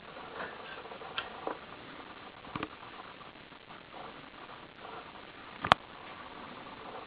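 Scattered light clicks and ticks over a steady hiss, with one sharp, much louder click about five and a half seconds in.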